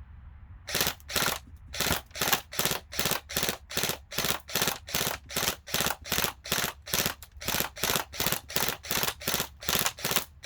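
ASG Scorpion Evo airsoft gun firing 6 mm BBs shot after shot, about three sharp reports a second, evenly paced. The firing stops near the end as the magazine runs empty.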